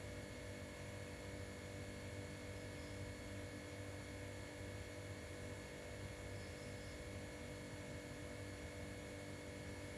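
Faint, steady hum with a few fixed tones over a light hiss: room tone with an electrical, mains-like hum and no distinct events.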